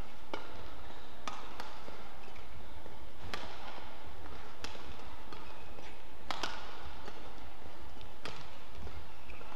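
Badminton rally: a series of sharp racket strikes on the shuttlecock, roughly one every second or two, some with a brief ringing echo, over a steady low hall hum.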